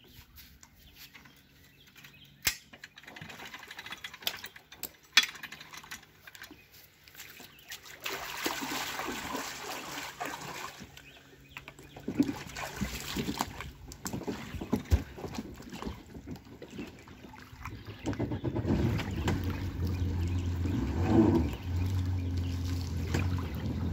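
Splashing in shallow water, then a Yamaha WaveRunner personal watercraft's engine running at low speed as it idles away from shore, with a brief rise and fall in engine pitch a little after three quarters of the way through.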